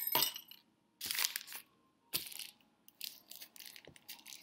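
Gift wrapping paper crinkling in about four short bursts as a tiny wrapped present is pulled from a felt stocking and handled.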